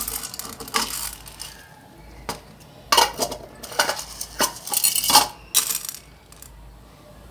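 A wooden spatula stirring and scraping dry urad dal and peanuts across a nonstick pan as they dry-roast without oil. The hard grains rattle and skitter in a series of short, separate strokes.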